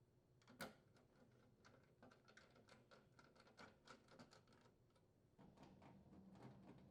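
Faint, irregular clicks and ticks of a hand screwdriver driving screws into the range's sheet-metal main top, with one sharper click about half a second in. A faint low hum comes in near the end.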